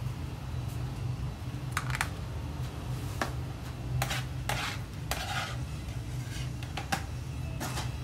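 Scattered light clinks, taps and short scrapes of a knife and utensils against a plastic food-prep tray, over a steady low hum.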